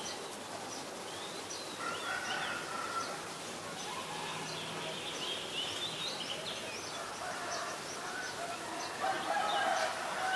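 Outdoor bird chorus: many short chirps and twitters from small birds, with domestic fowl calling and a louder, more drawn-out fowl call about nine seconds in.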